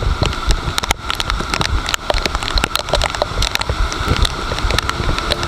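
Rain on an action camera during a mountain bike ride: many sharp drop clicks over a steady low rumble.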